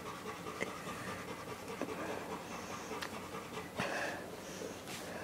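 Dog panting, with a few faint clicks.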